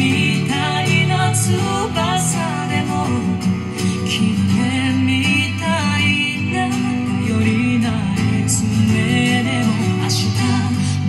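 A song with singing and instrumental accompaniment, played through a 71A-tube amplifier and loudspeakers.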